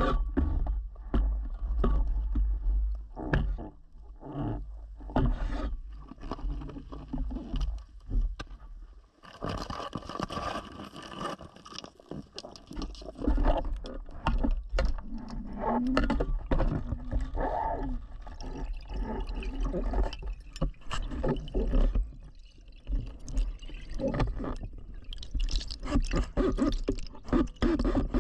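Underwater sound through a speargun-mounted camera: irregular knocks and scraping as the gun, shaft and line are worked against the rock to pull a speared grouper free, over a steady low rumble of water. A hiss of rising bubbles comes in near the end as the diver kicks upward.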